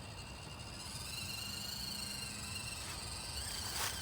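Axial SCX24 Deadbolt micro RC crawler's small electric motor and gears whining steadily at a high pitch as it crawls slowly up the log, with a brief click near the end.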